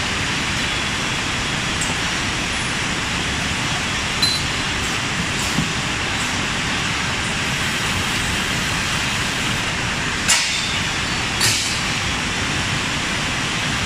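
Steady machine din of a bottle-packing line, with a few sharp knocks of glass bottles or machine parts, four of them, about a second or more apart, in the second half.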